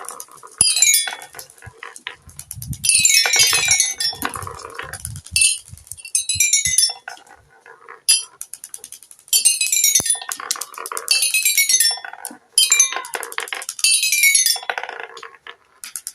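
Marbles rolling down a toy xylophone marble run, ringing out quick runs of metallic notes that step down in pitch, repeated about eight times. Between the runs the marbles click and clatter on the track.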